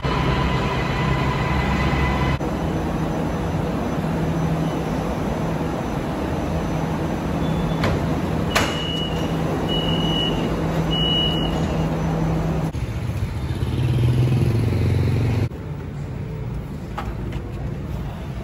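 Metro train pulling into the platform and standing, a steady low hum with a faint whine in the first couple of seconds. About nine seconds in there is a click, then three short high beeps, the door chime as the train and platform screen doors open. The hum drops away a few seconds before the end.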